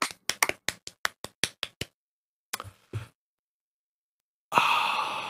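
A quick run of sharp taps, about five a second, stopping about two seconds in, with two more near three seconds. About four and a half seconds in comes a long breathy exhale that fades away.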